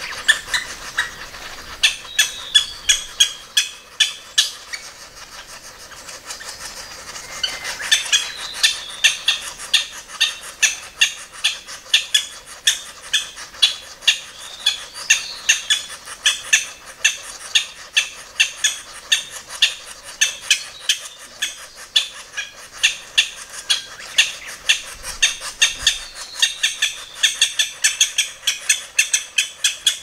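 Japanese green woodpecker nestlings begging from inside the nest hole: a fast, rasping run of short calls repeated several times a second, the sound of chicks being fed at the nest.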